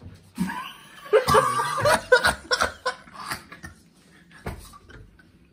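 Stifled laughing and chuckling from a few people, with a little soft voice, through the first three seconds or so. After that it drops to quiet, with one soft knock near the end.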